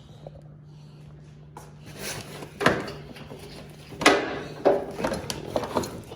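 A handful of sharp knocks and clunks, irregularly spaced, from objects being handled and bumped, over a steady low hum.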